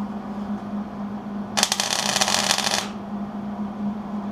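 Wire-feed (MIG) welder laying one short tack weld on the steel battery tray, a crackling arc lasting just over a second that starts about a second and a half in, over a steady low hum.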